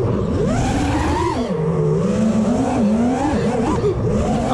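FPV freestyle quadcopter's brushless motors and propellers whining in flight, the pitch swooping up and down rapidly as the throttle is punched and chopped.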